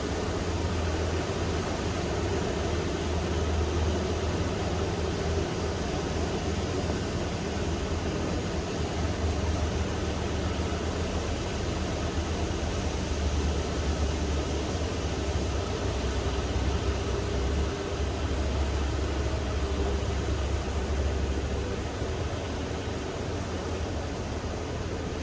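Calm sea waves washing steadily onto a sandy beach, with wind rumbling on the microphone that swells and eases.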